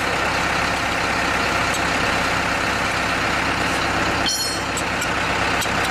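Engine of a hydraulic core drilling rig running steadily. A short metallic clink of a wrench on steel comes about four seconds in.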